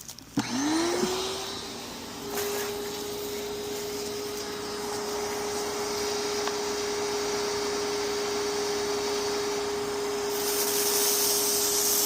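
Pressure washer starting up: its motor spins up quickly about half a second in and settles into a steady whine, with the hiss of the water spray growing after a couple of seconds and brightening near the end.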